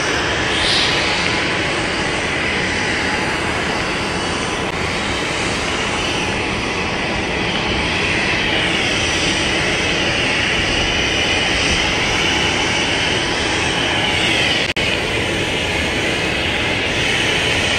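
Nearby jet engines running, a loud steady rushing roar with a high turbine whine that wavers slightly in pitch. The sound drops out for a moment about three-quarters of the way through.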